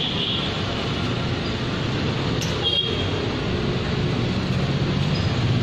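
Steady low rumble of outdoor background noise, with a brief sharp click and a short high tone about two and a half seconds in.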